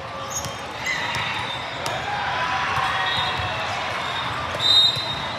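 Volleyball game sounds in a gym: ball hits and court noises over a murmur of spectators' voices, with a short high squeal about four and a half seconds in.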